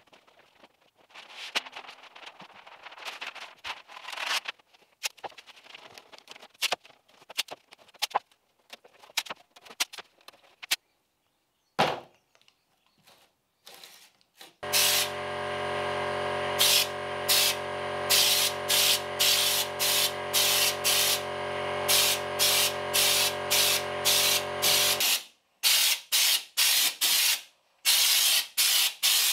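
Air-fed stonechip (schutz) gun spraying stonechip coating onto a car's floor pan, in short regular bursts of hiss about every half second or more. For about ten seconds of it a steady hum runs underneath.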